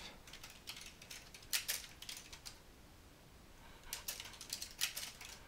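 Computer keyboard typing: a light patter of key clicks in two runs, with a pause of about a second and a half between them.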